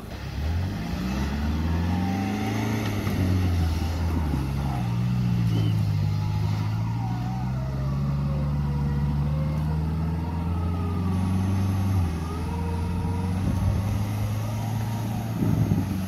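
Off-road 4x4's engine revving and held under load, its pitch climbing over the first couple of seconds, then wavering and sagging as it works, with a shift about twelve seconds in and a brief louder push near the end.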